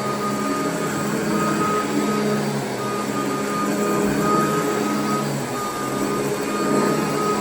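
Royal vacuum cleaner running steadily while vacuuming a carpet: a motor hum under a dense rushing hiss, with a higher whine that comes and goes.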